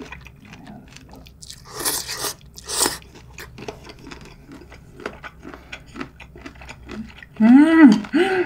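Close-miked eating sounds: soft crunchy chewing clicks throughout, two loud slurps of cold noodle soup about two and three seconds in, then near the end a loud closed-mouth "mmm" hum of enjoyment, twice, rising and falling in pitch.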